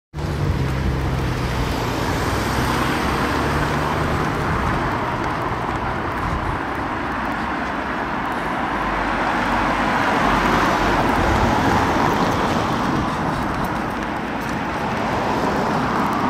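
Steady road traffic noise on a city street, an even hiss with a low rumble beneath, swelling a little around ten to twelve seconds in.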